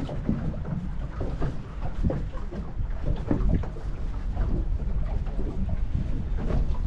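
Wind buffeting the microphone in a steady low rumble aboard a small boat at sea.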